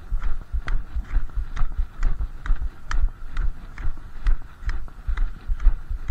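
Brisk Nordic walking on packed snow: the poles' tips click sharply against the snow and ice about twice a second in a steady rhythm, each click paired with the low thud of a footstep.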